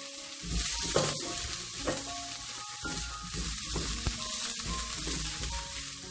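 Hot oil sizzling in a wok as ginger and fermented black beans are stir-fried, with stirring knocks; the sizzle jumps louder about half a second in.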